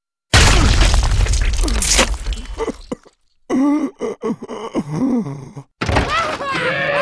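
Cartoon sound effects: a heavy, bass-laden crash of a giant dinosaur foot stomping down and crushing, then after a short pause a dinosaur's broken-up growls and shrieks.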